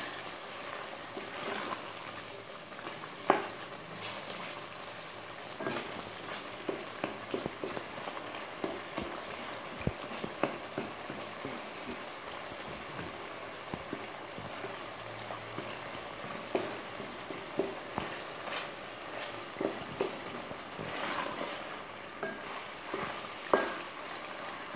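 Chicken and tomato masala sizzling as it fries in a steel pot, stirred with a wooden spatula that scrapes and knocks against the pot, sharpest about three seconds in and near the end. The masala is at the bhuna stage where the oil has started to separate.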